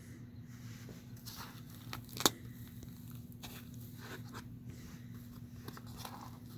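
Rustling and clicking of packaging being handled while a diecast model is taken out, with one sharp click a little over two seconds in. A steady low hum runs underneath.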